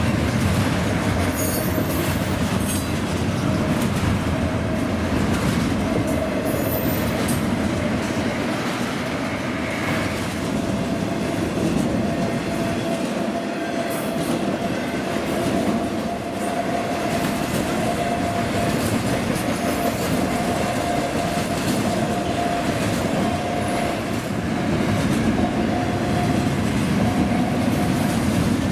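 Double-stack intermodal freight train's well cars rolling past close by: a steady rumble and rattle of wheels on rail, with a thin steady squealing tone from the wheels over it.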